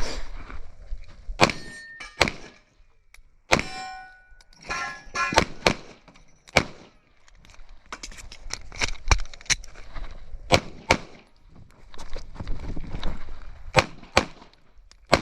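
Airsoft pistol firing through a shooting stage, mostly in pairs of shots about half a second apart. Several shots are followed by the ring of BBs striking steel targets.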